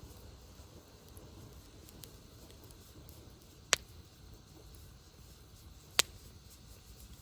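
Wood fire crackling over a low steady rumble, with faint ticks and two sharp pops, one about three and a half seconds in and another near six seconds.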